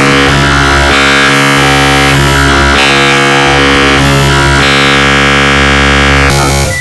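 A black MIDI passage of synthesized music: a dense, loud wall of countless simultaneous notes forming one sustained, buzzing cluster chord. Near the end it cuts off abruptly into sparse single melody notes.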